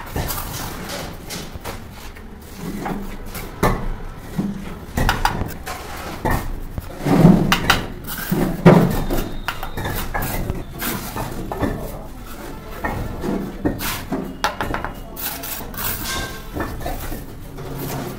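Bricklaying: a steel mason's trowel scraping and tapping on cement mortar and clay bricks as bricks are bedded into a wall, giving scattered clicks and knocks. Two louder thumps come about halfway through.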